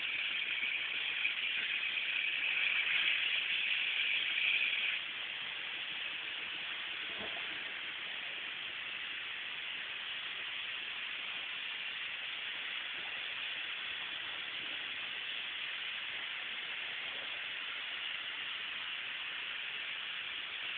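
Pressurised carbon dioxide gas hissing steadily, louder for the first five seconds or so, then settling to a lower, even hiss.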